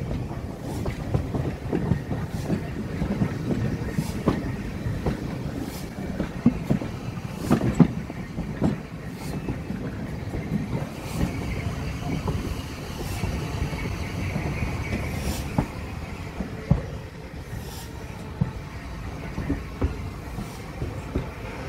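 Heritage railway carriage rolling slowly, heard from on board: a steady low rumble with a sharp wheel clack every second or two, and a faint wheel squeal about halfway through.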